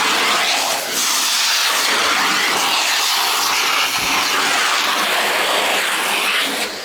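Shark Navigator NV22L upright vacuum running, air rushing loudly through the crevice tool on its hose as it is worked into couch crevices, with a brief dip about a second in.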